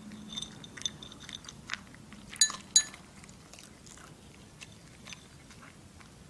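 Toy poodle eating dry kibble from her bowl: a run of small crunches and chewing, with two sharp ringing clinks about two and a half seconds in.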